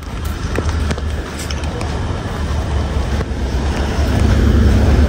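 Steady low rumble of road traffic, getting louder in the last second or so.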